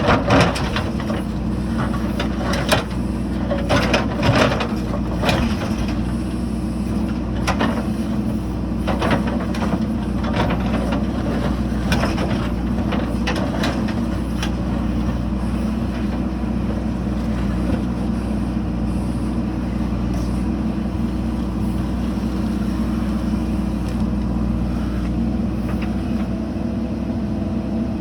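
JCB 3DX backhoe loader's diesel engine running steadily under work, with repeated knocks and clatters through the first half, then only the steady engine.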